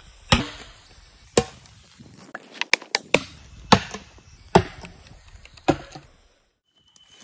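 Sharp chopping strikes on wood: about seven hard blows at uneven intervals, with a quick run of lighter taps in the middle. The sound cuts out abruptly near the end.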